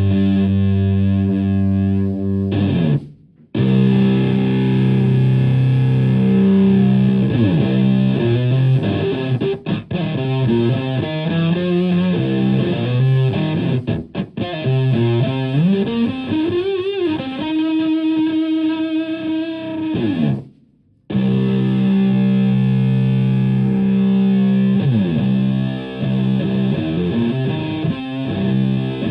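Electric guitar through a germanium three-transistor Tone Bender MKII-style fuzz into a Marshall Plexi amp, playing thick, fuzzed-out sustained chords and riffs. Past the middle a string bend rises into a held note. The playing cuts off sharply twice, about three seconds in and again about twenty seconds in.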